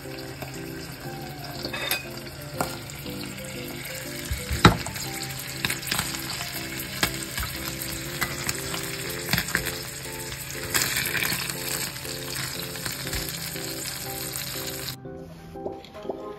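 Salted pollock roe frying in oil in a pan, a steady sizzle with scattered sharp clicks of a utensil against the pan, the loudest about five seconds in. The sizzle cuts off abruptly about a second before the end.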